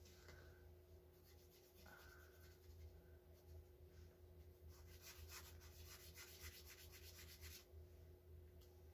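Faint felt-tip marker strokes scratching quickly back and forth on a paper coffee filter, densest from about halfway through until about a second before the end, over a steady low hum.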